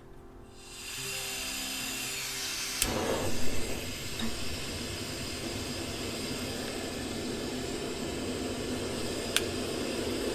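Canister-top gas camping stove: gas hissing as the valve is opened, a sharp click about three seconds in as it lights with a soft burst, then the burner running steadily under a pot of water. Another sharp click near the end.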